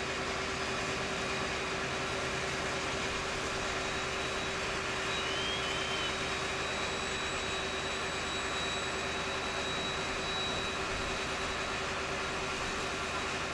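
Fire trucks' diesel engines running steadily, a continuous drone with a constant hum.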